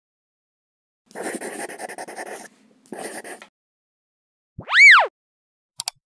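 Intro sound effects for an animated logo: two short noisy bursts with a fast flutter, then a single tone that swoops up and back down about five seconds in, and a quick double mouse-click sound near the end.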